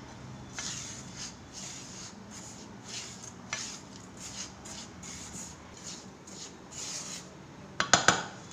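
Silicone spatula stirring a dry, crumbly mix of roasted semolina, sugar and chopped dry fruits around a nonstick kadai: a string of soft scraping swishes, about one or two a second. Near the end comes a quick cluster of sharp clicks, the loudest sounds here.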